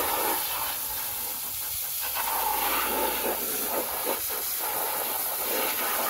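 Water spraying steadily from a hose nozzle onto a plastic toy car and the turf around it: a continuous hiss of the jet and its splashing.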